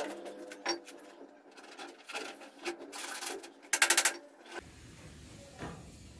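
Scattered light clicks and scrapes, then about four seconds in a quick run of slaps as a hand pats dust off a trouser leg. After that a low steady rumble sets in.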